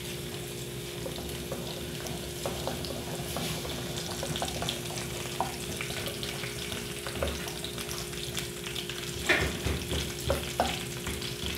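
Chopped garlic sizzling steadily in olive oil in an aluminium pan, stirred with a wooden spoon that scrapes and taps on the pan, with a few louder knocks near the end.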